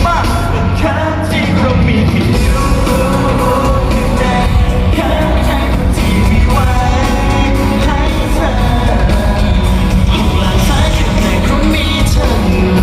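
Live band music with a male lead vocal, pop song played loud through a concert sound system, with a steady beat.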